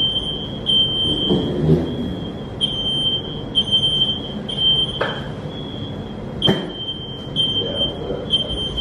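Smoke alarm beeping: a single high-pitched electronic tone repeating about once a second, each beep lasting around half a second or more.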